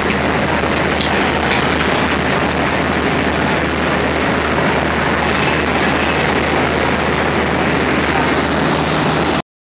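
Indian Railways diesel locomotive engine running steadily at idle close by, a constant low hum under a loud even rumble. The sound cuts off suddenly near the end.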